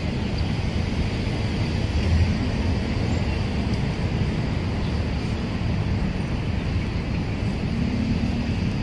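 Steady outdoor background noise: a continuous low rumble with a fainter hiss above it and no single sound standing out.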